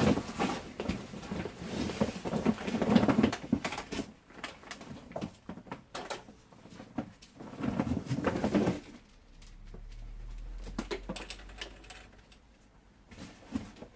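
Unpacking by hand: packing material rustling and objects knocking and clicking against a cardboard box, in irregular bursts.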